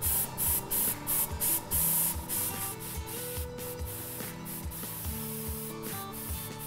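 Gravity-feed airbrush hissing in short quick bursts as detail is sprayed on, louder in the first couple of seconds, over background music.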